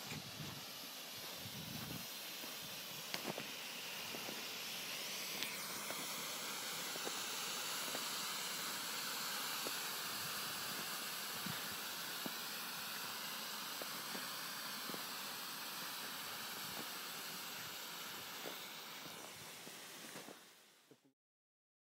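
DM-11 smoke pot burning, giving off a steady hiss as it vents its smoke. There are a few faint clicks, and the sound cuts off abruptly near the end.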